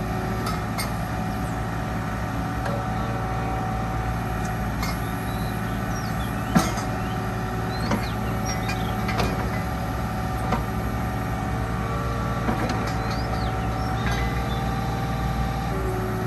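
Kubota U-30-5 mini excavator's diesel engine running steadily while the boom and arm are worked hydraulically. Sharp knocks and clicks come through now and then, the loudest about six and a half seconds in.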